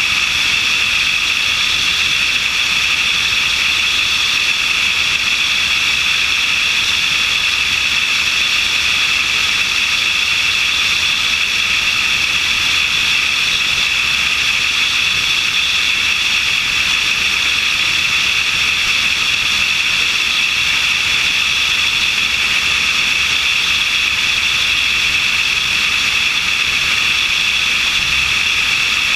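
Steady in-flight noise of a light aircraft picked up by a camera mounted on its wing: wind rushing past the camera mixed with engine and propeller noise, an even loud rush with a steady high-pitched hum over it.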